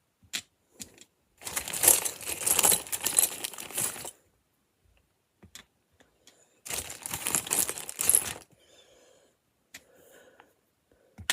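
Loose LEGO plastic pieces clattering and rattling as a hand rummages through them, in two bursts of about two to three seconds each, with a few single clicks of pieces between.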